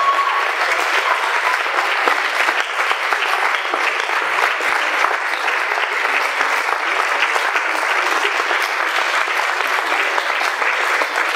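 Theatre audience applauding steadily: dense, continuous clapping for the cast's curtain call.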